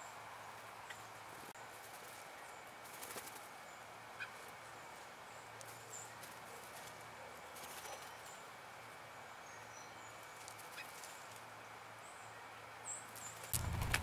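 Small birds (a tufted titmouse and a blue jay) at a seed and peanut pile on a stone wall: soft scattered clicks and rustles of hopping and pecking, a quick flutter of wingbeats about three seconds in, and a few faint high chirps. Just before the end a louder rustle with a low rumble starts.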